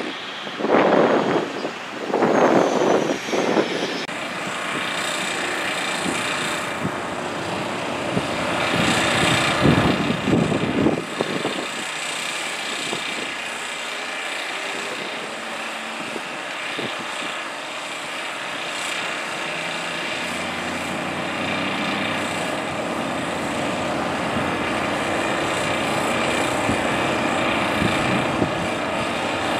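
Steady engine drone outdoors, with louder rushing swells near the start and again about ten seconds in.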